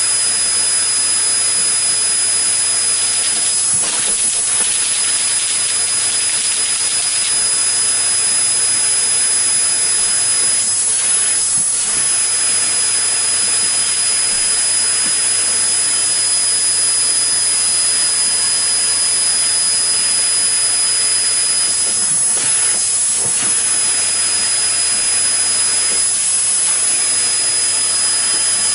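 Loud, steady hiss with a thin, high, constant whine, unchanging throughout.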